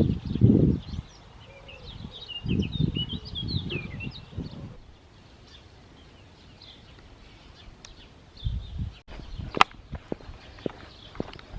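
Small birds chirping in quick twittering phrases, mostly a few seconds in, over low rumbling bursts of wind or handling on the microphone, with a single sharp click near the end.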